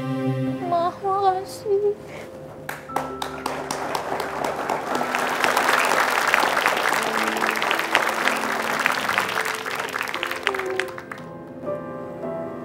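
Background music, with a studio audience applauding for several seconds in the middle before the clapping fades.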